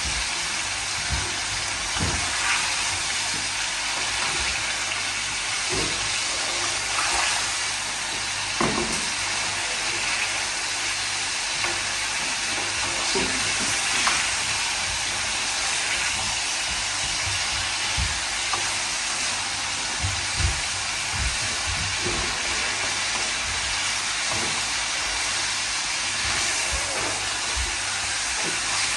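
Mutton pieces sizzling steadily in hot oil and ghee in a karahi, being seared until the meat changes colour, with a few short knocks from stirring.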